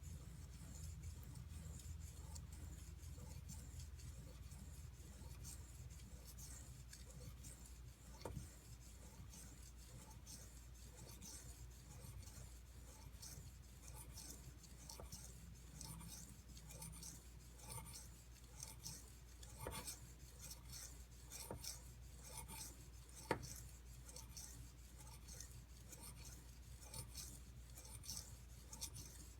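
Knife blade being stroked across a 320-grit whetstone under light pressure, a quiet, repeated scraping of steel on stone as the edge is ground toward a convex bevel at a slowly raised angle. A few sharper ticks, the clearest about twenty-three seconds in.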